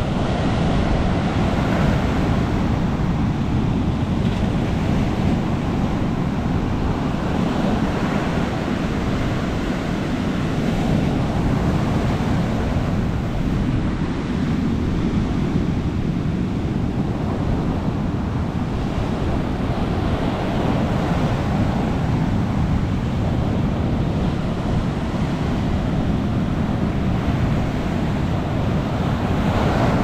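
Ocean surf breaking and washing up a sandy beach, a steady rushing with swells of louder wash every several seconds as each wave runs up the sand.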